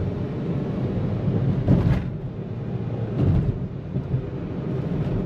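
VW Vento's turbocharged 1.2 TSI engine pulling hard up an incline on CNG, heard from inside the cabin as a steady engine and road rumble, with brief louder swells about two and three seconds in.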